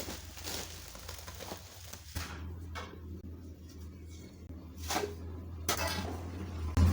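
Low steady engine hum that gets louder about two seconds in and again at the very end, with a few scattered knocks and rustles.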